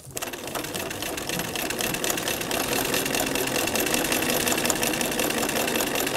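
Electric domestic sewing machine stitching steadily through fabric and a paper foundation, a rapid even needle clatter with a thin high motor whine. It gets up to speed within the first second.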